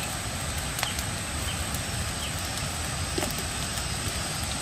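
Burning dry brush in a field fire: a steady rushing noise with scattered crackles and pops.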